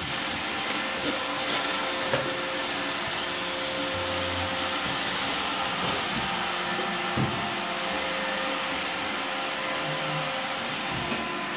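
iRobot Roomba 886 robot vacuum running steadily, its suction motor giving a continuous rushing hiss with a faint hum, while it picks up drywall debris. A few sharp clicks cut through it.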